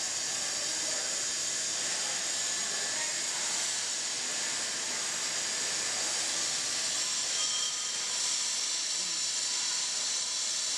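A steady, even hiss, strongest in the high range, with no distinct knocks or tones.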